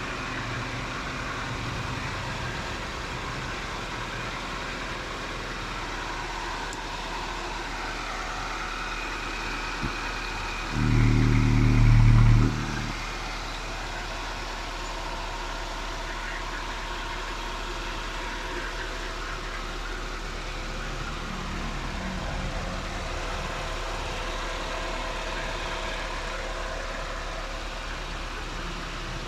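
Nissan CR-series four-cylinder DOHC engine running steadily at idle. About 11 seconds in, a louder steady pitched sound lasts about two seconds.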